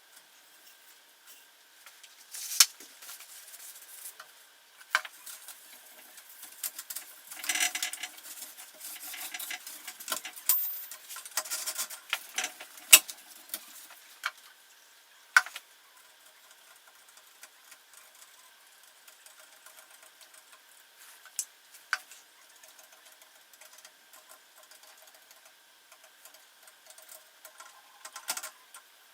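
Handling an old typewriter: scattered sharp clicks and knocks over soft rustling and scraping, busier at first and sparser after about halfway.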